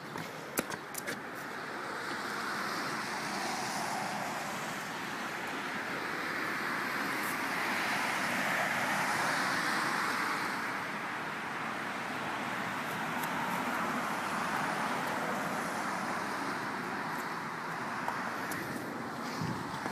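Road traffic hiss from tyres on wet pavement, swelling and fading as vehicles pass, with a few light clicks about a second in.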